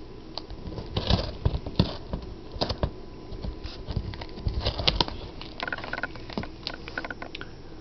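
A cat biting and chewing the edge of a cardboard box, heard as a run of irregular crunches and clicks.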